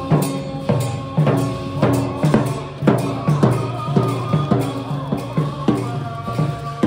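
A large barrel drum beaten in a steady rhythm, about two strikes a second, with ringing tones held between the beats.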